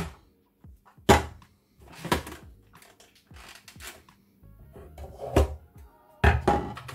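Hard plastic knocks and clunks of a Sage Kitchen Wizz Pro food processor's lid and feed-tube assembly being handled and lifted off the bowl, about five separate knocks spread out, the last few close together near the end.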